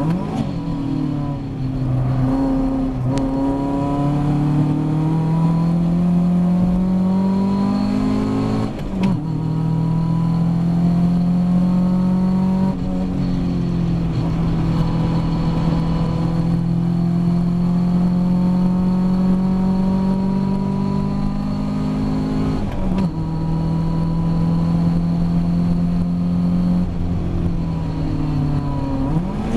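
Ginetta G40 race car's engine heard from inside the cockpit, pulling hard under acceleration. Its pitch rises and drops sharply at several gear changes, then falls near the end as the car slows.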